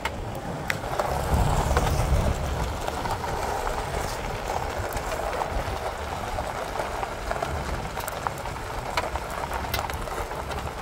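Vehicle tyres rolling over a freshly chip-sealed road, heard from inside the cabin: a steady low rumble and road hiss, a little louder about a second in, with scattered faint ticks.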